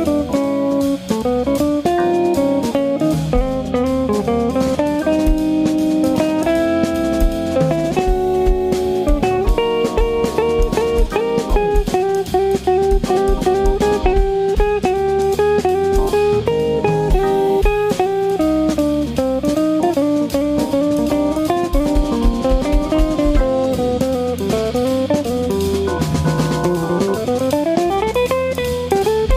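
Instrumental music by a trio of guitar, organ and drum kit, with steady drumming under sustained organ and guitar lines. Near the end, one note slides steadily upward.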